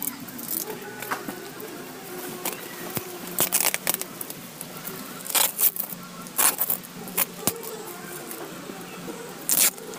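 Clear plastic stretch wrap and tape being pulled and torn off a cardboard box: several sharp crinkling rips, the loudest a little past the middle and near the end.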